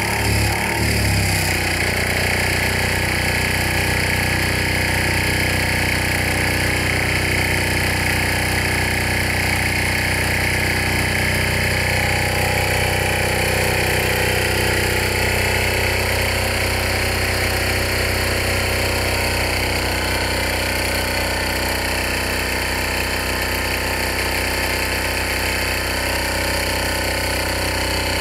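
Small air-cooled stationary engine running steadily at an even speed, with a brief change in its note about a second in.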